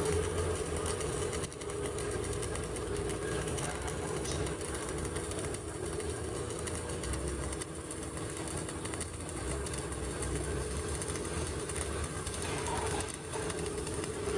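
CO2 MIG welding arc burning steadily on a vertical-up (3G) joint: an even, dense crackling buzz with a steady hum underneath.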